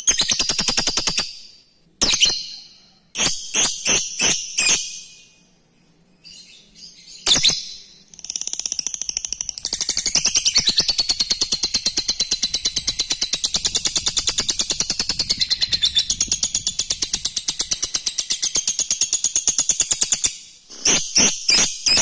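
Lovebird chattering in rapid high-pitched ticking notes: a few short bursts, then a long unbroken ngekek trill lasting about twelve seconds, then short bursts again near the end.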